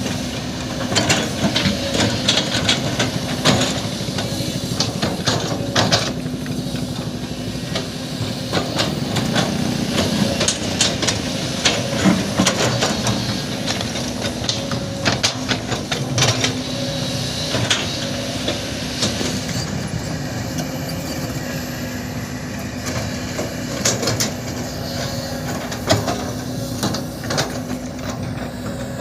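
Heavy construction machinery running steadily, with frequent sharp metallic knocks and clanks over the engine hum.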